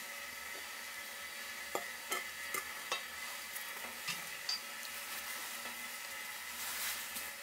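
Food sizzling in hot oil in a pan, with a handful of light clicks of a utensil against the pan as it is stirred, and a short swell of sizzling near the end.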